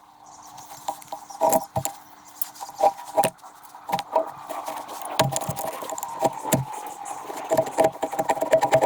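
Wood campfire crackling and popping in irregular sharp snaps. Rhythmic background music comes back in near the end.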